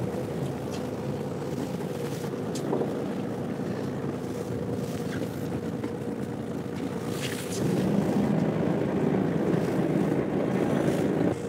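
A fishing boat's engine runs with a steady hum, under wind on the microphone and the wash of waves. The sound gets louder about two-thirds of the way through.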